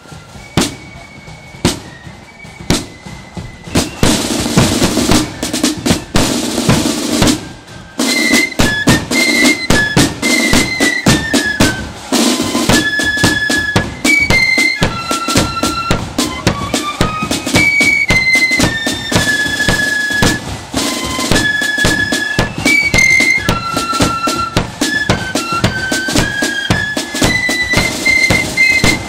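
Marching flute band: drum beats, then a snare drum roll from about four seconds in, and at about eight seconds the flutes strike up a tune over the snare and bass drums.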